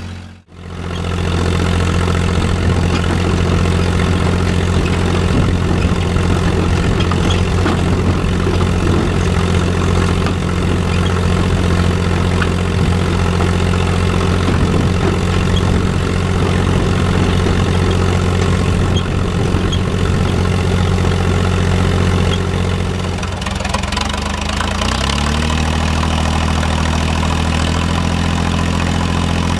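John Deere 1030 tractor's three-cylinder diesel running steadily through a stainless-steel exhaust pipe while pulling a cultivator. The sound drops out for a moment at the very start. About 23 seconds in, the engine note rises over a couple of seconds and settles a little higher.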